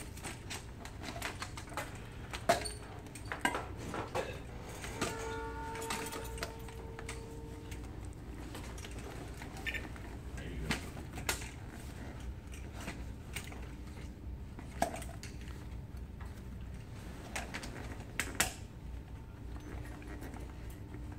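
Scattered clicks, knocks and light rattles of a self-contained breathing apparatus being handled: harness buckles, straps and the metal frame and air cylinder knocking about.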